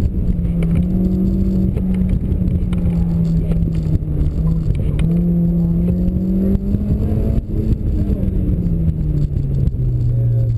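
Honda S2000's inline-four engine through a T1R cat-back exhaust, pulling hard at mid revs as the car is driven through an autocross course. The pitch wavers up and down, then falls steadily over the last couple of seconds as the revs drop.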